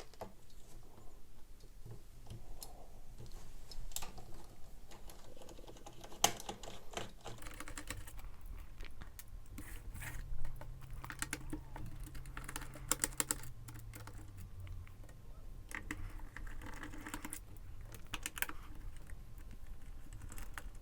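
Small screws being backed out of a netbook's plastic case with a small screwdriver: scattered light clicks and ticks, with a few quick runs of clicks.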